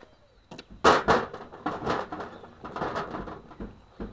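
Heavy metal parts of a scrapped refrigerant compressor being handled: its copper-wound motor stator and cast casing knock and scrape as they are pulled apart. A clunk about half a second in, then a loud knock and a couple of seconds of clattering and scraping, with a few single knocks near the end.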